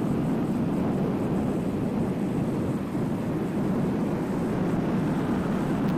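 Steady rushing noise of riding a bicycle beside a busy multi-lane road: traffic noise mixed with wind on the microphone, with no distinct events.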